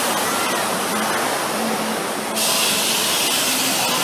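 Amusement-park helicopter ride running, with a steady wash of mechanical noise. About two and a half seconds in, a loud hiss of air starts abruptly and holds steady, from the ride's pneumatic arm cylinders venting as the cars are raised or lowered.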